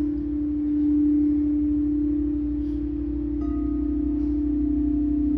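Frosted quartz crystal singing bowls played with a mallet: one bowl sings a steady low tone, and a little over three seconds in another bowl is struck, adding higher ringing tones that hang on over the low one.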